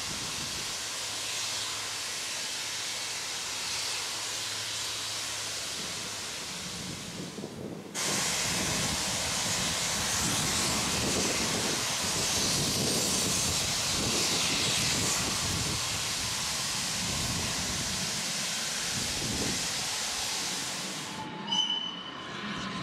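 Steam-hauled train with the Hunslet Austerity No. 22 and Hudswell Clarke 0-6-0 saddle tank Wissington: a steady hiss of steam over the rumble of the train. The sound cuts abruptly louder about eight seconds in, then cuts again near the end to quieter sound with a few brief high tones.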